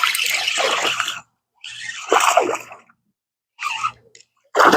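Hooked bass thrashing and splashing at the water's surface during the fight, in several irregular splashy bursts.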